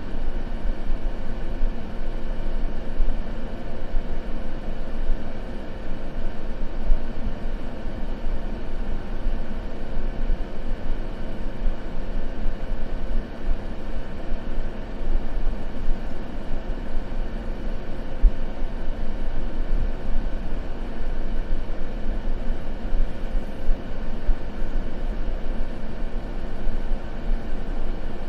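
Continuous white-noise ambience: an even, unbroken deep hiss-rumble, weighted toward the bass, with no crackle or other events.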